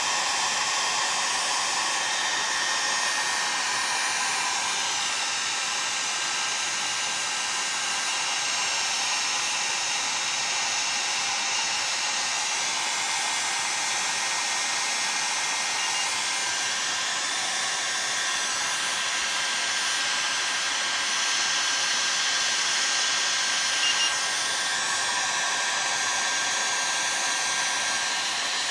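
Heat gun blowing steadily, warming a chainsaw crankcase so its bearing bore expands to take a tight crankshaft bearing. Two short double beeps from an infrared thermometer, one past the middle and one later on.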